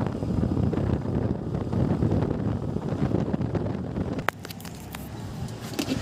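Wind buffeting the microphone over a motorbike running along a road. About four seconds in it cuts off suddenly to a quieter background with a few light clicks.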